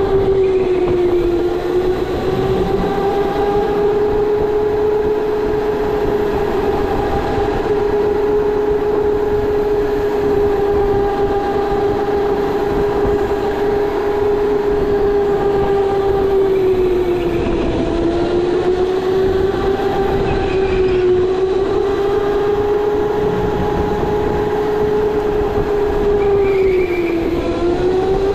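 Storm electric go-kart's motor whining at speed: one steady high whine that dips in pitch several times as the kart slows for corners and rises again on the straights.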